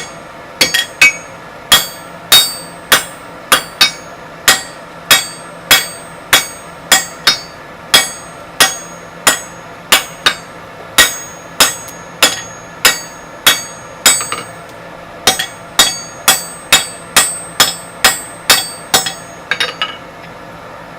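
Blacksmith's hammer striking 25 mm square mild steel bar on an anvil in a steady rhythm of about one and a half blows a second, each blow ringing briefly. The blows pause briefly about two thirds through and stop shortly before the end.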